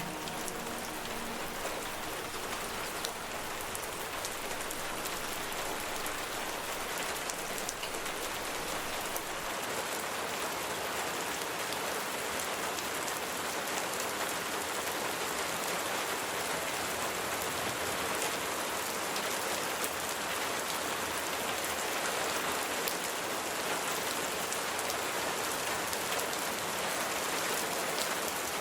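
Steady rain falling, a dense patter of individual drops over an even hiss.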